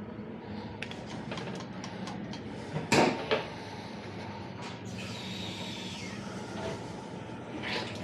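A sharp knock about three seconds in, then water starting to run through the freshly repaired hose with a steady hiss, over a constant low hum; the hose is being tested after its burst connection was fixed.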